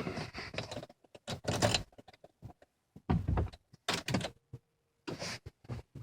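Irregular clicking and movement sounds from behind the dashboard of a 2003 Volkswagen Passat that will not crank or start: six or so short, uneven bursts of noise.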